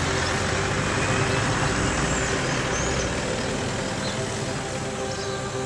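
Vehicles driving past on a paved road, an off-road 4x4 and then a pickup truck, with engine and tyre noise. The low engine rumble fades about three seconds in.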